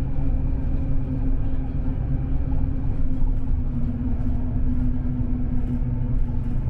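Steady rumble of a moving vehicle, with a constant hum held over it.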